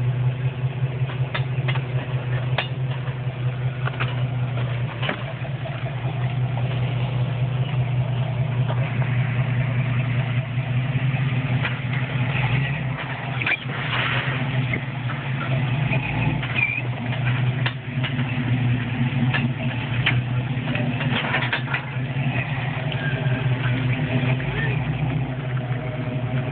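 Off-road vehicle's engine running steadily at low revs, with scattered sharp clicks and knocks.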